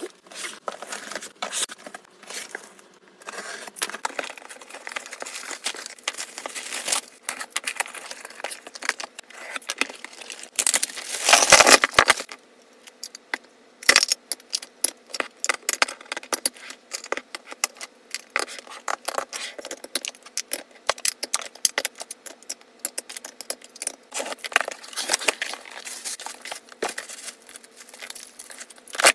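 Packaging and small items being handled during an unboxing: crinkling and tearing of wrapping with many light clicks and taps as pieces are picked up and set down. A longer, louder rustle comes about 11 seconds in.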